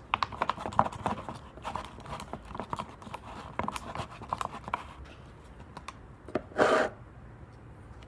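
A mixing tool stirring thick glue-and-shaving-cream slime in a cup, making quick irregular clicks and taps against the cup for about five seconds. A brief, louder noisy sound comes about six and a half seconds in.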